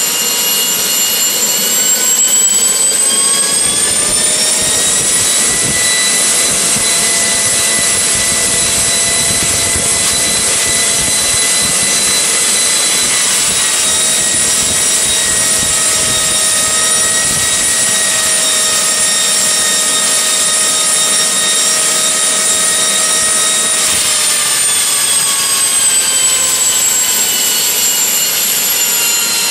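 AiResearch Garrett GTP70-9 gas-turbine APU running with a high turbine whine made of several tones. The pitch rises about two seconds in as the engine speeds up, holds steady, then falls back about twenty-four seconds in as it slows.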